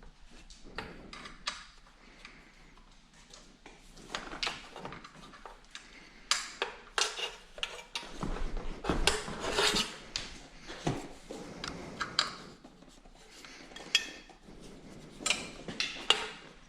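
Metal hand tools clinking, clanking and scraping as they are handled, an irregular run of knocks and rattles that is busiest around the middle.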